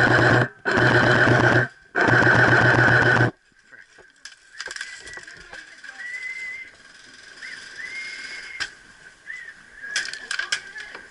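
Airsoft electric gun firing three full-auto bursts of about a second each, close by; then much quieter, with faint whistle-like tones and a few sharp clicks near the end.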